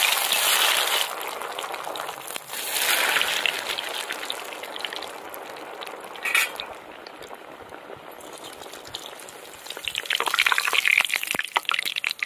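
Breaded chicken cutlets sizzling in hot vegetable oil in an aluminium kadai during their first frying. The hiss surges as each cutlet goes in, about a second apart at the start and again near three seconds, then settles to a steady bubbling. Near the end it crackles up again with light metallic clicks of a slotted spoon in the pan.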